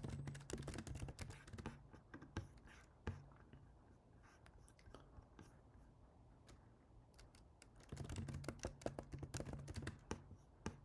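Typing on a computer keyboard: quick runs of key clicks, then a few seconds of only scattered keystrokes, then steady typing again near the end.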